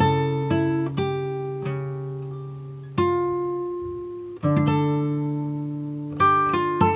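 Background music of plucked string notes, each starting sharply and fading, with fresh chords struck about three and four and a half seconds in.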